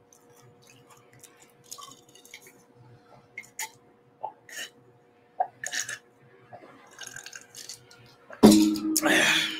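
Sipping and swallowing from a drinking glass: small soft mouth sounds and clicks, then about eight seconds in a loud breathy, voiced exhale of about a second as the drink is finished.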